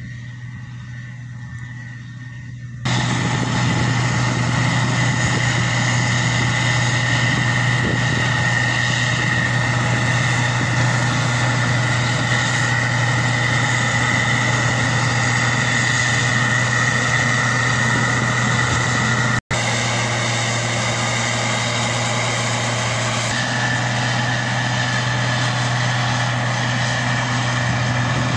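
Combine harvester running while harvesting wheat: a steady engine drone with a high, steady whine over it. It gets much louder about three seconds in, and breaks off for an instant a little past the middle.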